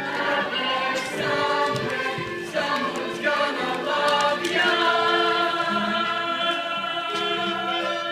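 Stage-musical cast chorus singing together in harmony, changing notes over the first few seconds, then holding one long chord.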